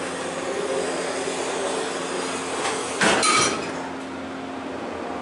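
Montgomery hydraulic elevator's submersible pump motor running with a steady hum while the car travels up. About three seconds in, a brief loud clunk rings out for a moment.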